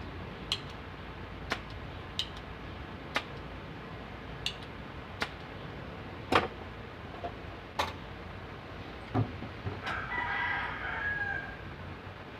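Sharp clicks and taps, roughly one a second, then a rooster crowing once about ten seconds in.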